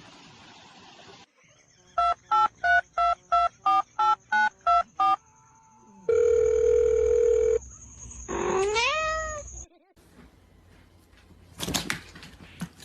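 A run of about ten short telephone keypad tones, about three a second, followed by a steady tone for about a second and a half. Then a cat meows once with a rising pitch, and a few sharp clicks sound near the end.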